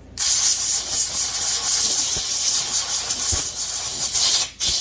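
A pressurised spray hissing steadily for about four seconds, breaking off briefly near the end and then starting again, directed at a chainsaw cylinder and crankcase being cleaned down.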